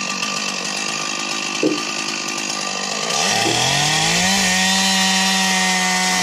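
Stihl two-stroke chainsaw cutting through a white pine trunk to fell it, running steadily at high revs. About three seconds in the engine note drops, climbs back up to full throttle over about a second, and holds there louder.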